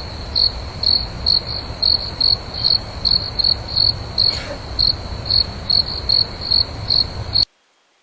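An insect chirping in a steady, even rhythm of short high-pitched chirps, about three a second, over a low rumble. It cuts off suddenly near the end.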